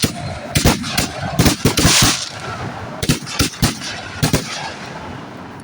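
Consumer fireworks going off: a string of a dozen or so sharp bangs at uneven spacing, with a hiss about two seconds in.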